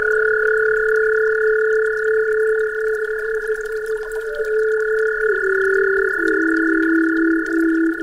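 A steady high pure tone, the meditation 'frequency' tone, sounds over a native flute holding long low notes that step down twice in the second half, with faint running creek water beneath.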